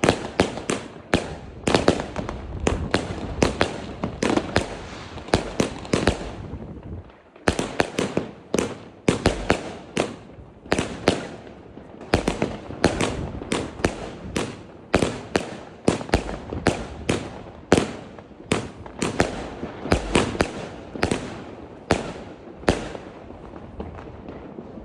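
Midnight New Year's Eve barrage of firecrackers and fireworks: dozens of sharp bangs going off in quick, irregular succession over a continuous rumble of more bangs. There is a short lull about seven seconds in.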